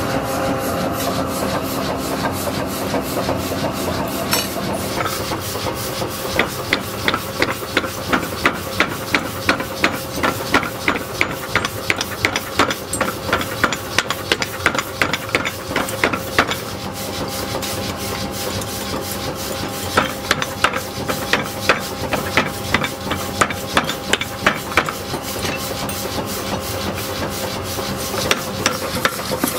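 Power hammer forging a red-hot steel axe blank on its anvil, in rapid runs of blows about three a second with pauses between. Under the blows runs a steady machine hum.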